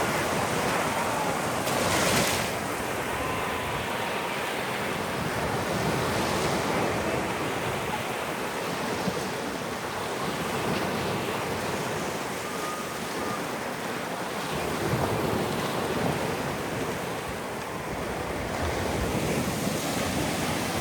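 Sea waves washing in, a steady rush of surf that swells and eases every few seconds, with wind buffeting the microphone.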